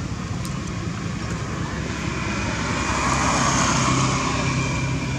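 A motor vehicle passing on the road: a low engine hum and tyre noise that swell to their loudest about three to four seconds in, then start to fade.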